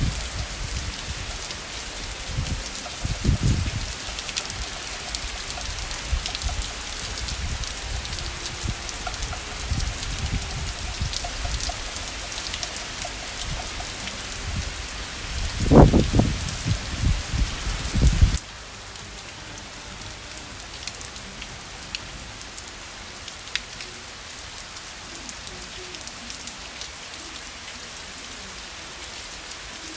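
Steady rain falling on surfaces, with some low thuds in the first part, the loudest about two-thirds of the way through. It changes abruptly a little past halfway to a quieter, even patter of rain.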